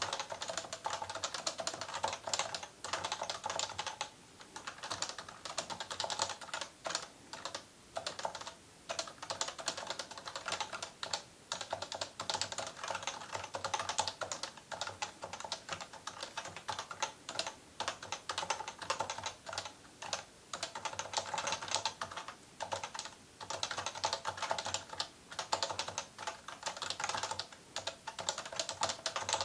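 Continuous fast typing on an electrostatic capacitive (Topre-type) keyboard: a dense run of rapid keystrokes with a few short pauses.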